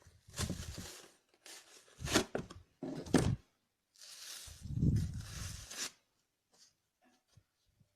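Slime being squished and stretched by hand: four separate bursts of squishing, the longest from about four to six seconds in.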